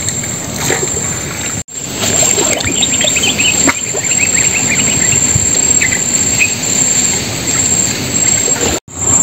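Small wooden boat under way on a creek, with a steady low rumble of motor and water. Birds chirp in short runs through the middle, over a steady high-pitched whine.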